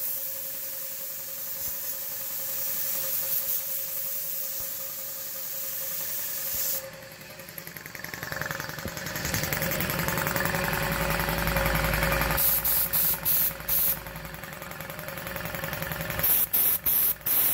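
Compressed air blasting from a handheld blow gun onto a wet concrete floor: a long steady hiss for about seven seconds, then softer, with clusters of quick short blasts near the end. The rebuilt air compressor keeps running underneath with a rhythmic pitter-patter.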